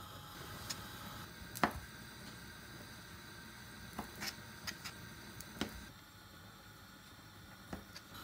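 Kitchen knife chopping dried prunes on a plastic cutting board: a handful of separate sharp taps of the blade on the board, the loudest about a second and a half in, over a faint steady hiss.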